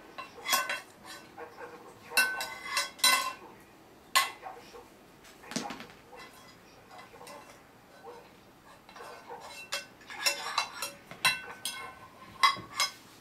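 A baby knocking and stirring kitchen utensils in a small saucepan: irregular clusters of clinks and clanks, busiest in the first few seconds and again near the end, with quieter stretches between.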